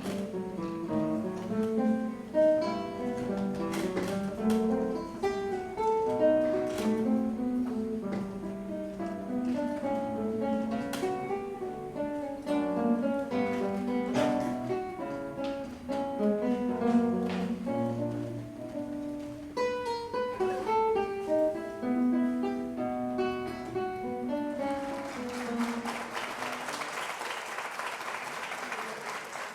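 Solo acoustic guitar playing a classical piece in quick plucked notes. About 25 seconds in the playing stops and audience applause takes over.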